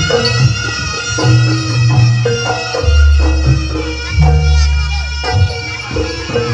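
Jaranan band music: a shrill reed horn, the slompret, plays a wavering melody over regular drum strokes and deep, held bass notes.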